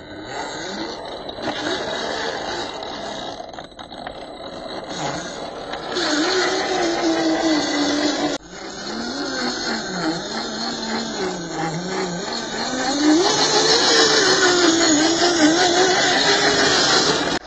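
Electric motor and gear drive of an MN86K scale RC crawler whining, the pitch rising and falling as the throttle is worked while it crawls through mud.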